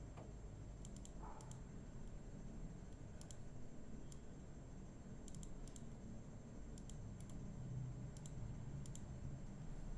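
Scattered light clicks of a computer mouse, about a dozen, several coming in quick pairs, over a faint low hum.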